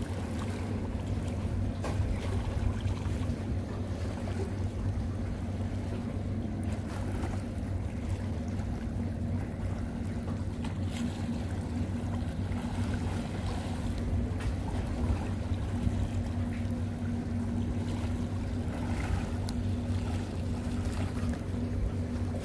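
A boat engine droning steadily at one unchanging pitch, with wind and water noise around it.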